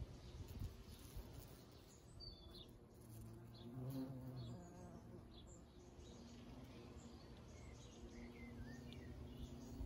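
Bumblebee buzzing: a faint, steady hum that swells about four seconds in and again near the end.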